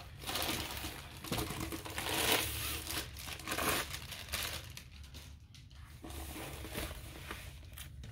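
Plastic and paper wrapping around a rolled diamond painting canvas crinkling and rustling as it is handled and unrolled, busiest in the first half and then in shorter scattered rustles.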